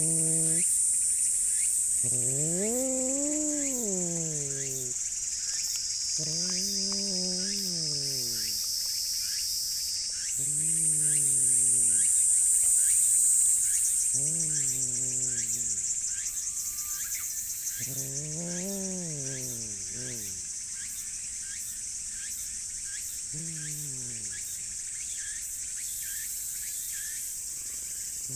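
Tabby cat growling: long, moaning growls that rise and fall in pitch, about seven of them. The cat is warning off a rival cat nearby even while being stroked. A steady high-pitched insect chorus runs underneath.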